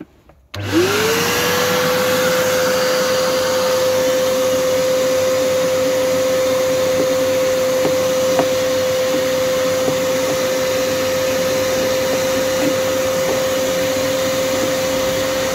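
Canister vacuum cleaner switched on about half a second in. Its motor spins up quickly to a steady whine and runs on as the hose nozzle works over burnt debris. The suction is weak: the vacuum is 'not pulling'.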